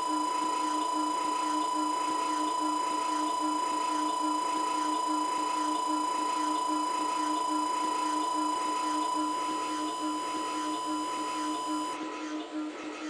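Synthesized imitation of an MRI scanner, made with a music app: a steady high electronic tone over a lower tone that pulses rapidly and evenly. Near the end the highest overtones cut out abruptly.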